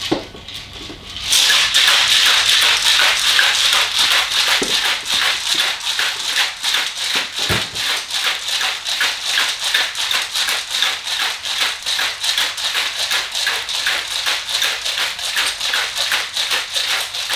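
Ice rattling hard inside a stainless steel cobbler cocktail shaker, shaken in a fast, steady rhythm of several strokes a second, starting about a second in. The cocktail is being shaken over ice to mix and chill it.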